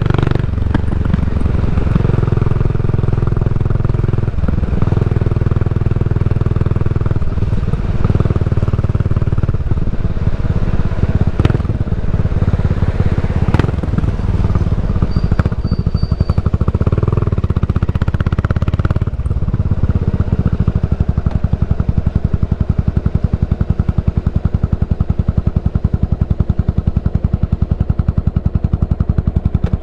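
Yamaha SR400's single-cylinder engine through a Goods Tapered Cone slip-on muffler, under way on the road for the first two-thirds. From about twenty seconds in it settles to an idle with an even, regular pulse as the bike stands in traffic.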